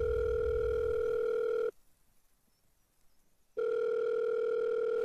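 Telephone ringback tone of an outgoing call heard through the handset: a steady low beep about two seconds long, a pause of about two seconds, then a second beep of the same length.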